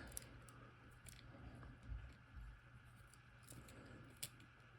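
Near silence with a few faint, scattered clicks: the metal padlock and tools being handled while a loosely screwed hex is taken out.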